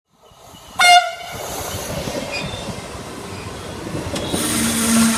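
A passenger train sounds one short, loud horn blast about a second in, then runs on with a steady rolling rumble. A steady low hum joins near the end.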